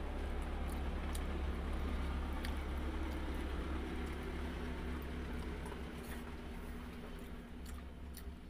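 Eating sounds, wet chewing and squishing of food with a few small clicks, over a steady low hum.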